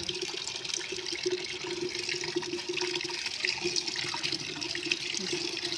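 A steady stream of fresh grape juice pouring from a cloth spout into a plastic bucket as a sack of grapes is trodden, with a steady low tone underneath.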